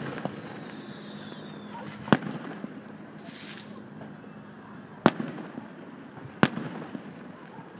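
Aerial firework shells bursting: three sharp bangs a second or more apart, with a brief hiss between the first and second.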